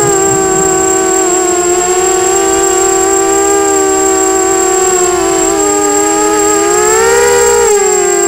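Brushless motors and propellers of a 250-size FPV racing quadcopter whining, heard from the onboard camera, with several close pitches drifting together as the throttle changes. The pitch rises shortly before the end, then drops. A steady high-pitched tone runs under it.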